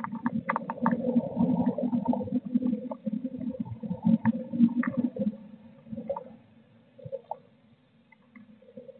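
A blue tit shuffling and fluffing its feathers on the floor of a wooden nest box as it settles to roost: close, scratchy rustling with its claws clicking on the wood. The rustling is busiest in the first five seconds or so, then dies down to a few faint scratches.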